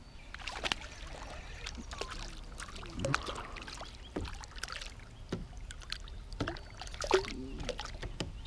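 Irregular small splashes and knocks around a kayak as a hooked crappie is reeled in close to the boat.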